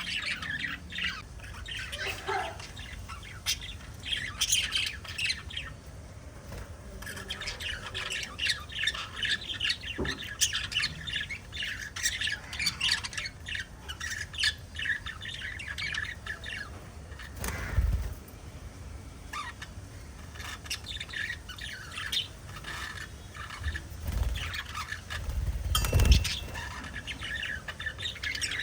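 A small flock of pet budgerigars chirping and chattering continuously, with many overlapping short, high calls and occasional squawks. Two low thumps stand out, one about two-thirds of the way through and one near the end.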